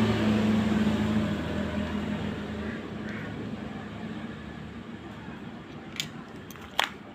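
A machine's hum and fan noise winding down and fading over the first few seconds, then two sharp clicks near the end.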